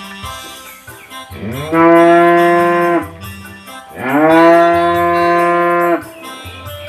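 A Limousin-cross heifer mooing twice, two long loud calls, each rising in pitch at its start, then held level before stopping abruptly, with faint music underneath.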